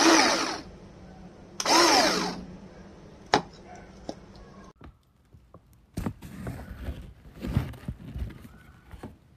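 Small electric garlic chopper with a clear plastic bowl handled and worked: two short bursts near the start, the first falling in pitch and the second rising then falling, then a couple of sharp clicks, and later a run of irregular bursts and knocks.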